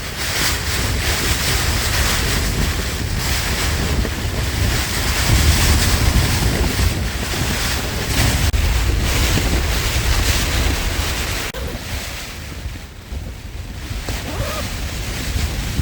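Gale-force wind gusting on an exposed mountain top, blasting the microphone with a low rumble and a hiss. The gusts swell strongest a third of the way in and ease off a little near the end.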